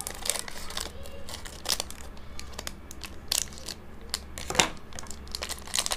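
Crinkling and crackling of a small foil-lined snack wrapper being snipped open with scissors and squeezed by hand, in scattered sharp crackles.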